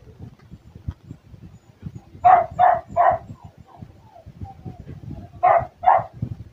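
A dog barking in short bursts: three quick barks about two seconds in, then two more near the end.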